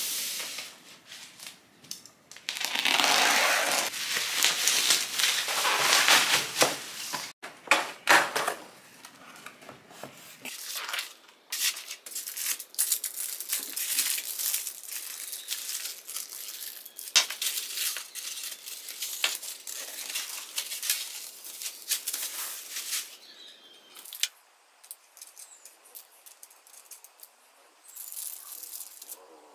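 A plastic-wrapped parcel being torn open and crinkled, loudest for the first several seconds. After that come softer crinkles and scattered light clicks and taps as the cardboard box and its metal parts are handled.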